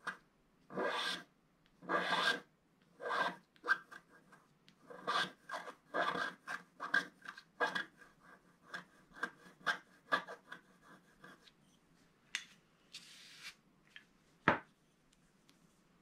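Pointed wooden stylus scratching the black coating off a scratch-art page in many short scraping strokes, which thin out after about eleven seconds. Near the end there is a single sharp tap, the loudest sound.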